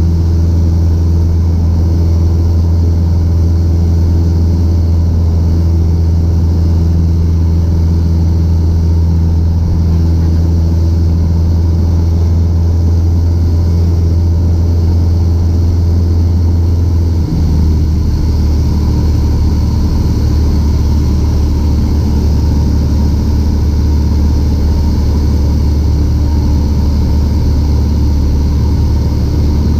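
Piper PA-28's piston engine and propeller droning steadily, heard inside the cabin with a hiss of airflow. About seventeen seconds in, the drone drops slightly in pitch and then holds.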